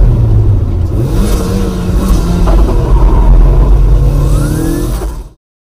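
Turbocharged 1996 Mazda MX-5 engine heard from inside the cabin as the car slows after the finish line. The engine pitch rises briefly about a second in, then drops back. All sound cuts off abruptly near the end.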